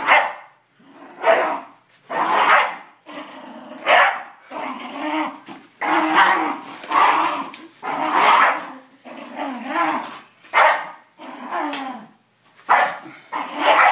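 Dogs, a pit bull and a poodle, growling and barking while play-fighting, in repeated short bursts about once a second.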